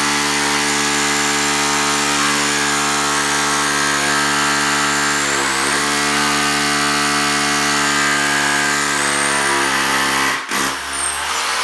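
Milwaukee SDS Plus rotary hammer with a 3/16-inch concrete bit drilling a pilot hole through a wooden plate into concrete, running steadily. Its pitch sags briefly about halfway as the bit loads up. It cuts out for a moment near the end and starts again.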